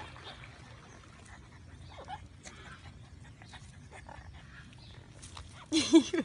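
A French bulldog gives one short, loud bark near the end, after a stretch of faint scattered small sounds.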